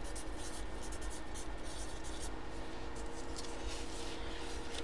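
Pen writing on a paper card: a run of short, irregular scratching strokes.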